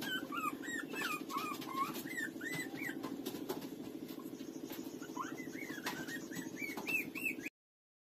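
Puppies squeaking and whining in many short rising-and-falling cries as they nurse, with small clicking sounds, over a steady low drone. The sound cuts off abruptly near the end.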